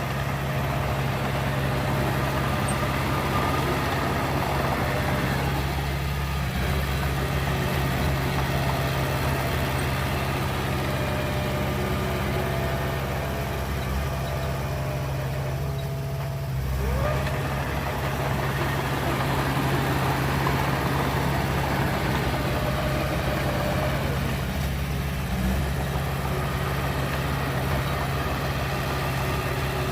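Heavy diesel earthmoving machinery running: a steady low engine drone whose note swells and eases off three or four times, as the engine takes and sheds load.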